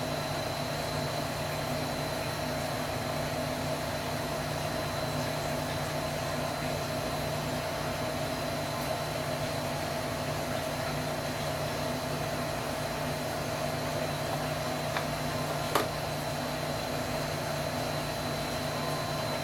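Steady room hum and hiss with a few fixed tones, like a fan or air conditioner. A single short click stands out about three-quarters of the way through, with a fainter one just before it.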